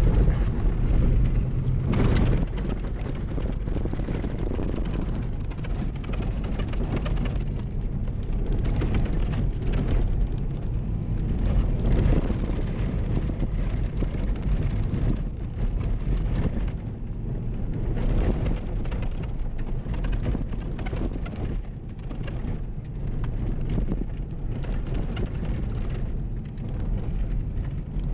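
Toyota vehicle driving on a rough dirt track, heard from inside the cabin: a steady low rumble of engine and tyres on gravel, with occasional knocks and rattles from the bumps.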